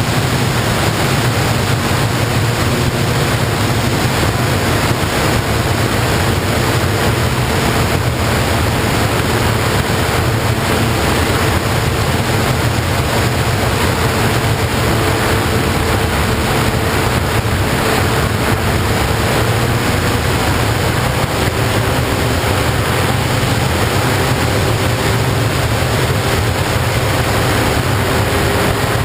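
Steady loud wind rush over the microphone of a model aircraft in flight, with the faint drone of its electric motor and propeller drifting slightly in pitch.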